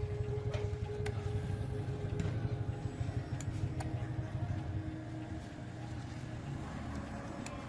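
Steady low mechanical rumble with a faint hum, and a few light clicks scattered through it.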